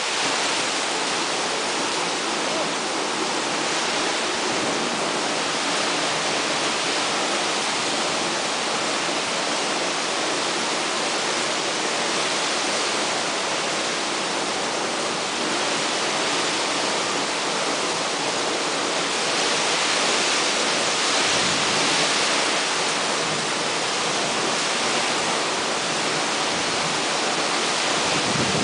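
Heavy storm rain pouring down in strong wind: a steady, loud rushing hiss that swells a little about two-thirds of the way through.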